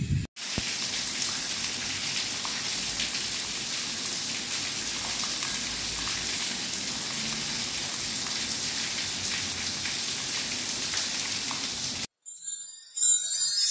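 Steady rain falling, an even hiss with scattered drops ticking. About twelve seconds in it cuts off suddenly and a jingling music sting begins.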